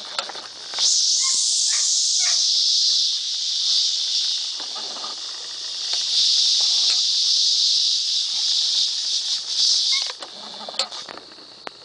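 Loud, steady, high-pitched buzzing of an outdoor insect chorus, beginning about a second in and dropping away near the end.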